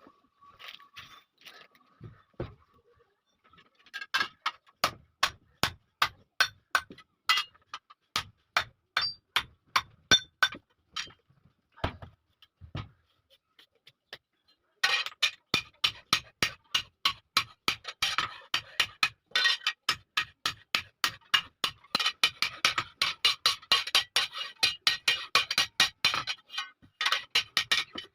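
Blacksmith's hand hammer striking iron: a run of ringing blows about three a second, a short pause, then a longer, faster run of steady blows.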